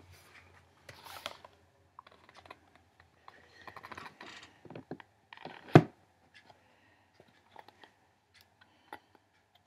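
A book being handled close to the microphone: paper pages rustling and small clicks, with one sharp knock about halfway through.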